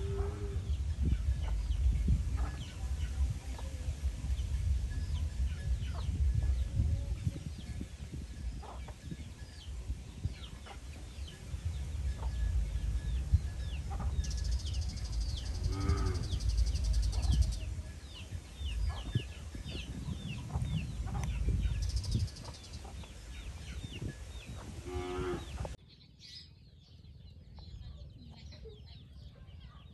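Free-range chickens foraging: chicks peeping in many short high chirps and hens giving a few lower clucking calls, over a steady low rumble. The rumble and background drop away abruptly near the end, leaving fainter chirping.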